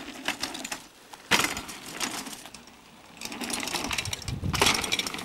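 Bicycle on a dirt jump: tyres rolling and crunching over dry dirt, building toward a sharp clatter as the bike lands about four and a half seconds in. There is another sharp knock just over a second in.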